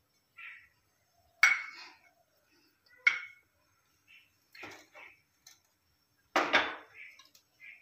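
A handful of separate sharp clinks and knocks of metal kitchenware, a small brass cup set down on the counter beside a pressure cooker on a gas stove, the loudest knock coming near the end.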